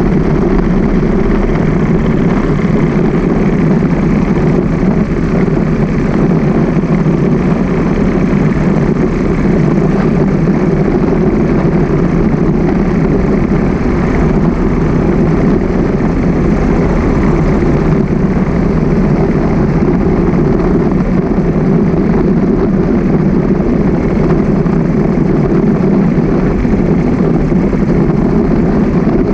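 Steady, unbroken rumble of a motorcycle riding along at a slow, even pace: its engine and wind on the handlebar-mounted camera, with traffic alongside.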